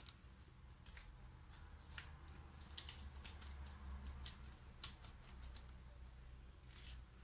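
Faint scattered clicks and light taps of small kitchen handling as baking powder is added to the cake batter, with two sharper ticks about three and five seconds in.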